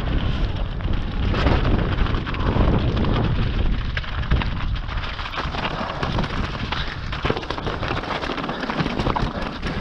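Mountain bike descending fast over loose rocky scree: tyres rumbling and crunching over stones, with wind buffeting the microphone and many sharp rattles and knocks from the bike over the rough ground.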